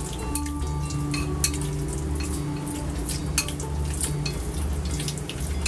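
Chopsticks clicking and scraping against a small bowl as raw marinated pork is stirred with cornstarch. The clicks come irregularly and often, over a steady low hum.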